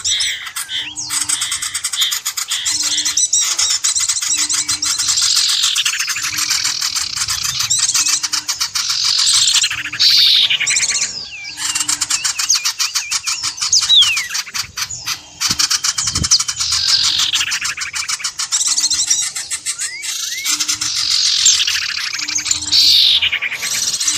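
Bird-luring call recording: dense, continuous chirping and twittering of small birds, with repeated fast descending calls. A short low tone repeats about once a second underneath.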